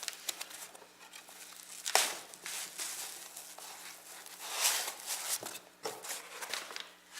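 Plastic packaging being handled, crinkling and rustling in irregular bursts, with the sharpest rustles about two seconds in and again near five seconds.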